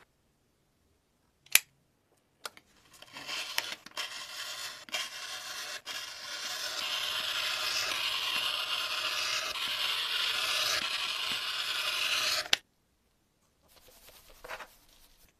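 Woven carbon fibre cloth being cut on a cutting mat: a sharp click about a second and a half in, then a scraping, rasping cutting noise that turns steady and stops abruptly, with a faint rustle near the end.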